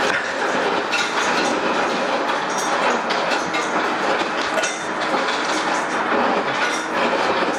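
Refrigerator door dispenser running into a cup: a loud, steady rushing with many small clicks and rattles throughout.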